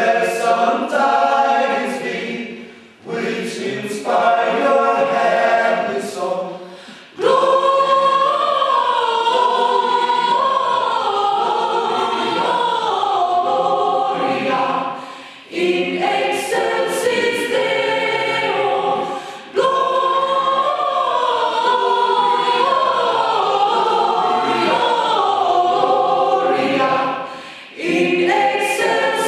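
A choir singing in long phrases, with brief dips between phrases several times.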